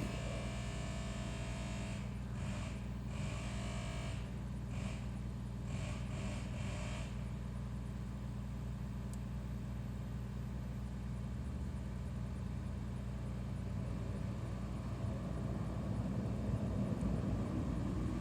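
A steady low hum with a few faint rustles in the first several seconds.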